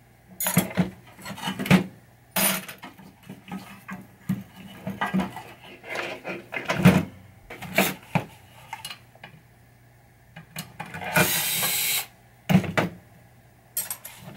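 Small metal pinball chime box parts clinking and clattering as they are handled and set down, in a run of separate knocks and clicks. A louder burst of noise lasting about a second comes near the end.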